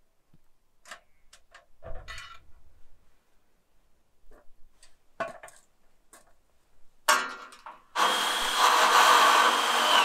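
Scattered light knocks and clatters from an aluminium ladder being carried and opened out. About eight seconds in, a loud, harsh rasp begins and lasts a couple of seconds.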